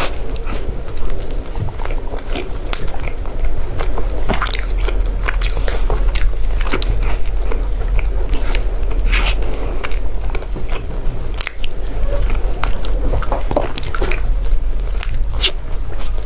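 Close-miked biting and chewing of a soft swirled bread, with many small irregular mouth clicks and smacks.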